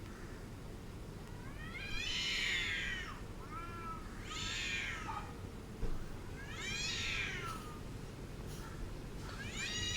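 Angry cat yowling: four drawn-out calls, each falling in pitch, the last starting just before the end, over a steady low background hum.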